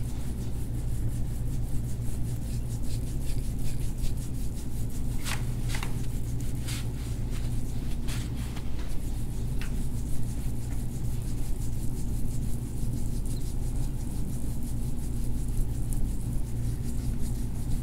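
Hands doing deep-tissue massage on a forearm, rubbing and pressing the skin, with a gristly clicking grinding between about five and nine seconds in. The chiropractor puts this grinding down to frayed tendons sliding in their sheath. A steady low hum runs underneath.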